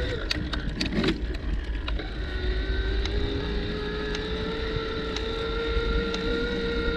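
Bicycle riding along: wind rumbling on the microphone, a cluster of clicks and rattles in the first two seconds, and a steady whine that drops out briefly near the start and returns after about two seconds.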